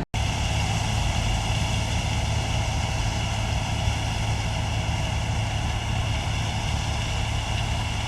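New Holland TX68 combine harvester running steadily, a low engine hum with several steady higher tones above it, after a very brief dropout right at the start.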